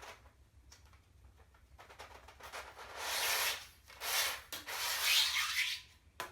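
An LED desk light's diffuser being slid out of its housing: a scraping rub in several long pushes, loudest in the second half, with a short click near the end.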